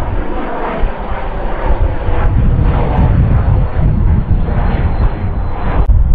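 A business jet's turbofan engines passing overhead in flight: a steady, loud rumble with a faint high whine that falls slightly in pitch. The sound changes abruptly about six seconds in.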